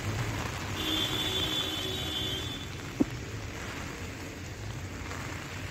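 Heavy rain falling steadily on a waterlogged grass field. A steady tone sounds for about two seconds near the start, and a single sharp click comes about three seconds in.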